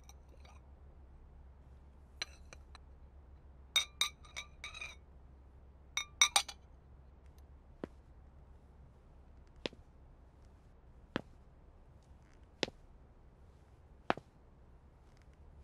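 Porcelain jar lid clinking and ringing against the jar as it is lifted and set back, in several quick clusters, the loudest about six seconds in. Then single sharp clicks follow about every second and a half.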